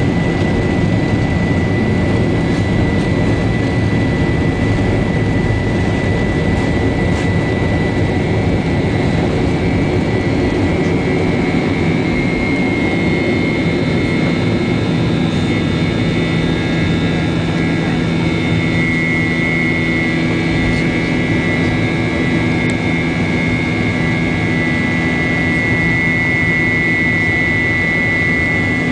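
Cabin noise of a Boeing 737-800 climbing after takeoff, heard from a seat near the front: a steady rush of air and CFM56-7B engine noise with a thin high whine. From about twelve seconds in, the engine tones change, and the high whine grows stronger toward the end.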